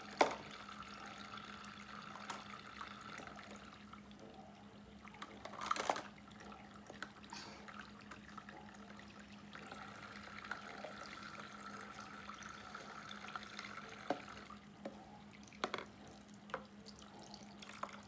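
Water running from a toy kitchen sink's faucet and dripping into the basin, with a steady low hum and a few scattered clicks and knocks of toys handled at the sink, the loudest clatter about six seconds in.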